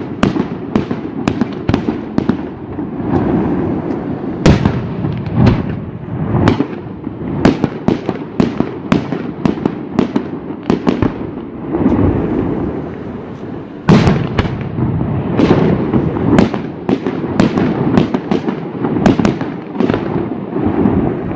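Aerial firework shells bursting in rapid succession: many sharp bangs a second over a continuous low rumble, with a few louder reports, the loudest about 14 seconds in.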